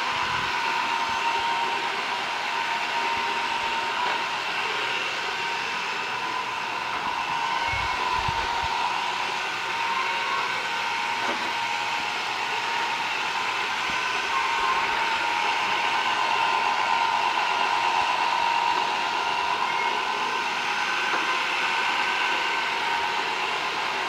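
Roomba robotic vacuum cleaner running, a steady whirring of its vacuum motor and brushes with a high whine over it.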